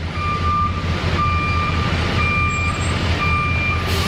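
Backup alarm of a debris-hauling truck reversing with a trailer: a steady beep repeating about once a second, four times, over a steady low engine rumble.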